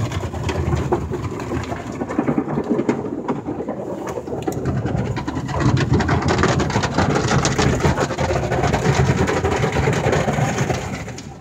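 Automatic car wash tunnel equipment running around the car, heard from inside the cabin: a steady rumble and hiss that swells about halfway through and fades near the end.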